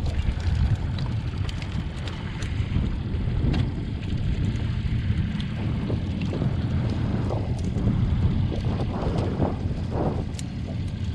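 Live catfish flopping in a wire catfish net, giving scattered clicks and rattles with a cluster of rustling splashes near the end, over a steady low rumble.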